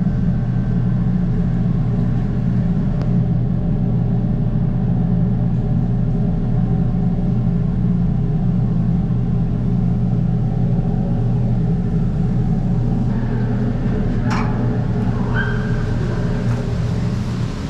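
A steady, loud low rumble inside a long tunnel under a hydroelectric power station. A short sharp click sounds about fourteen seconds in.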